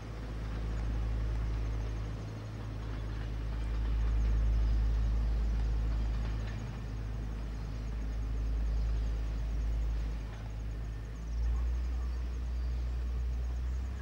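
Diesel railcar pulling away under power, its engine giving a low steady drone that swells and eases as the train moves off.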